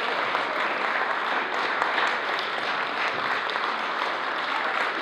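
Audience applause: many people clapping at once.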